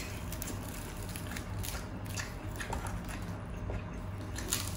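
Crisp, crackly skin of crispy pata (deep-fried pork leg) being pulled apart and bitten, with chewing: scattered short crunches and crackles over a steady low hum.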